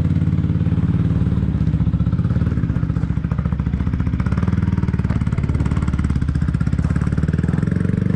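Yamaha YZF-R125's single-cylinder four-stroke engine running steadily, loud and even.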